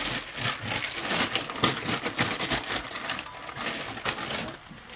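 Chicken and vegetables sizzling in a frying pan, with boiled chickpeas just added, half of them still frozen: a dense, irregular crackle that eases off near the end.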